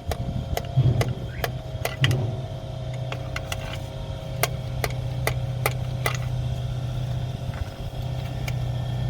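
Irregular sharp clicks and taps from an oil filler and hand work as oil is squirted into the cylinders through the spark plug holes. Under them runs a steady low machine hum.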